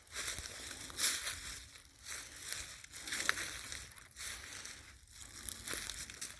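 Footsteps crunching through dry leaf litter on the forest floor, about one step a second.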